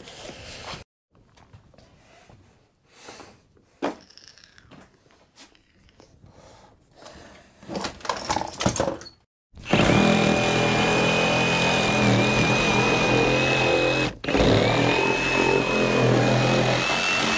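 Faint scattered knocks and crackles of rotten wood being handled. Then, about ten seconds in, a Ryobi cordless power tool starts cutting into the wooden boat deck. It runs loud and steady with a constant high whine, stops briefly, and starts again.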